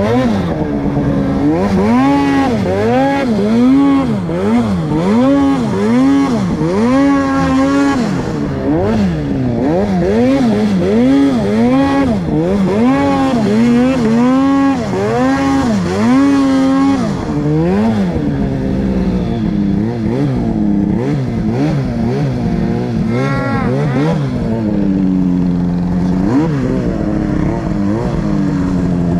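Two-stroke mountain snowmobile engine under the rider's throttle in deep powder, revving up and down over and over, pitch rising and falling about once a second, then running steadier with a few longer pulls in the last third.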